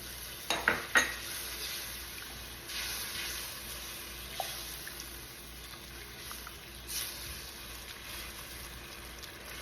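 Sauce sizzling in a pan while a utensil stirs in the cornstarch to thicken it, with a few sharp clinks of the utensil against the pan about half a second to a second in.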